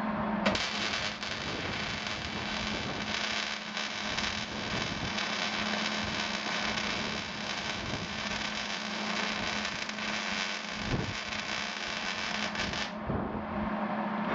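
Electric arc welding on an ATV's steel frame: a continuous crackling hiss from the arc that starts about half a second in and cuts off about a second before the end. A steady low hum runs underneath.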